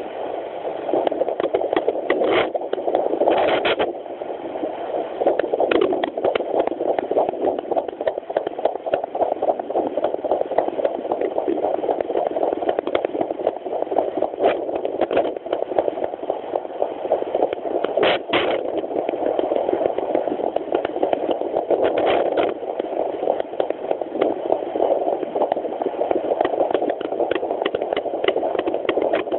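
An unborn chihuahua puppy's heartbeat heard through a handheld pocket fetal doppler's speaker: a fast, steady pulsing at about 210 beats a minute, a normal rate for an unborn pup. A few brief crackles break in.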